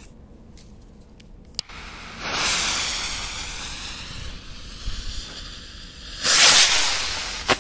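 A lit firework (a 'colored garland') hissing as it burns, a steady hiss that sets in after a single sharp click and slowly fades over about four seconds. Near the end it gives a louder rushing burst, followed by one sharp crack.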